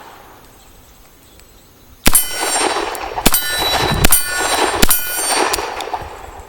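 Four shots from a Colt Diamondback .38 Special revolver, the first about two seconds in and the rest under a second apart, each followed by a metallic ringing clang.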